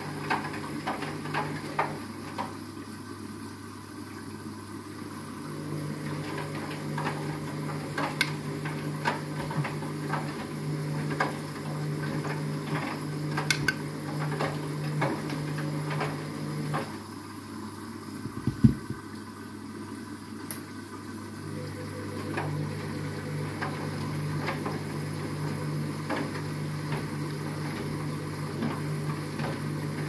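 Front-loading washing machine tumbling a load of backpacks in water: the drum motor hums as it turns, with splashing and frequent clicks and knocks from the load. The drum stops for a few seconds just past the middle, when one sharp thump sounds, then turns again.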